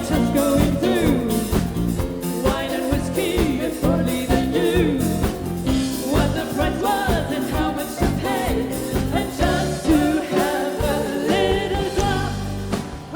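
Live rock band playing a film-music medley: drum kit, bass and guitar under a gliding melody line, with singing.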